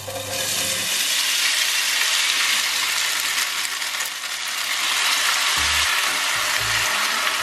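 Noodles sizzling in a smoking-hot frying pan, a loud, steady hiss. Dark soy-sauce mixture is poured in over them about four seconds in, and the sizzle carries on.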